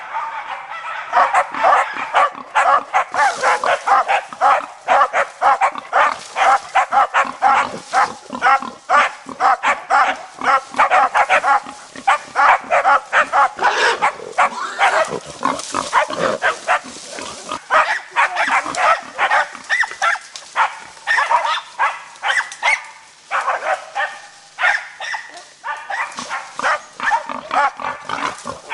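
Hunting dogs barking hard and without a break, baying a wounded wild boar cornered in the brush, many sharp barks a second.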